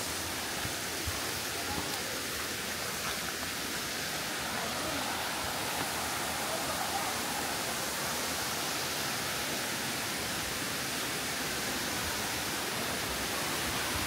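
Waterfall water rushing steadily, an even hiss that does not let up.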